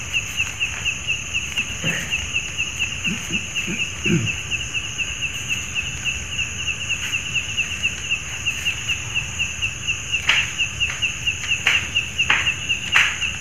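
Rapid high-pitched animal chirping, steady at about four chirps a second, with a few sharper, louder calls near the end.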